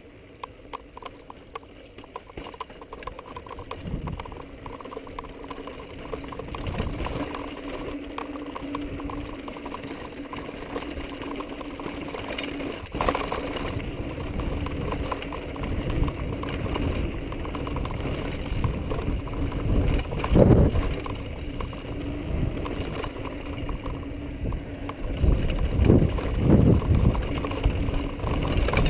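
Mountain bike rattling and its tyres crunching over a rough rocky trail on a descent, with a steady wash of rushing air, getting louder as it goes. Heavier knocks from the bike hitting rocks come around two-thirds of the way in and again near the end.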